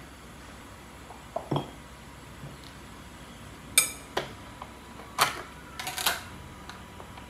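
Plastic food containers being handled and set down on a kitchen countertop next to a glass bowl: a couple of soft knocks, then several sharp clicks and clinks from about four seconds in, with a quick cluster near six seconds.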